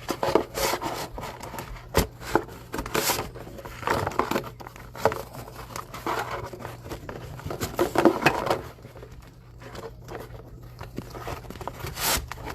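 Trading cards being handled and rearranged on a table: irregular rubbing and sliding swishes with a few sharp clicks.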